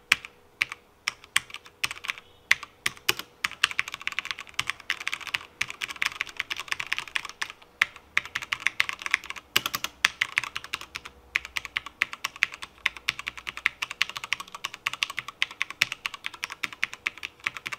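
HyperX Alloy FPS Pro mechanical keyboard with linear Cherry MX Red switches being typed on rapidly: a fast, dense run of keystroke clicks with a few brief pauses.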